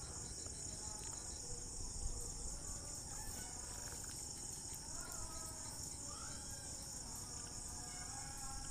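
Steady high-pitched insect chorus, with a few faint short chirps over it.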